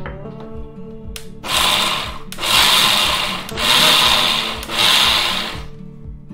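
Electric mixer grinder pulsed four times in quick succession, each run about a second long with brief stops between, coarsely grinding lightly steamed mung sprouts. Soft background music underneath.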